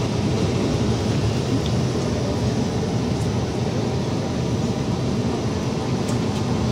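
CAF Urbos 3 tram running, heard from inside its passenger cabin: a steady, even rumble of running noise.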